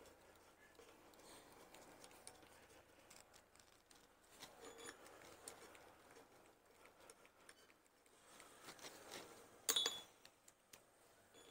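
Faint clicks and rustles of gloved hands threading bolts finger-tight through a brake disc into its hub, with one sharper metallic clink near the end.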